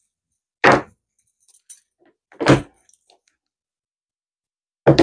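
Two short knocks, about two seconds apart, as resin serving trays are set down onto a black metal wire tiered frame.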